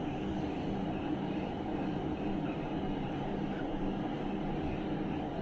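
Steady low hum and rumble of background noise, with a few faint, short budgie chirps about halfway through.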